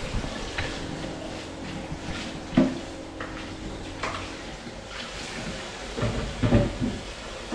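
Water running from a kitchen tap into a stainless steel sink, with a few knocks and clinks of dishes. The sharpest knock comes about two and a half seconds in.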